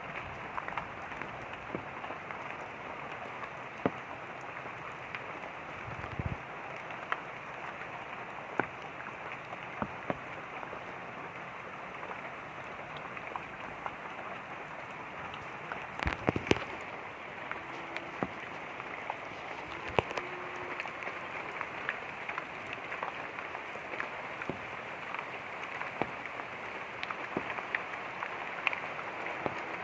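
Light rain with running water: a steady hiss, dotted with many single drops striking close by, a few of them louder.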